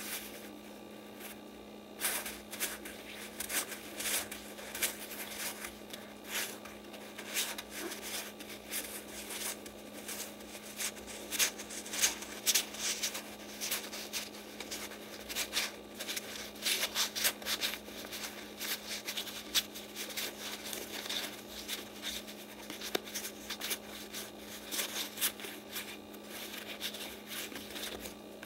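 Yu-Gi-Oh trading cards being flipped through by hand, card after card: irregular rubbing, rustling and light clicks of card against card, starting about two seconds in. A steady low hum runs underneath.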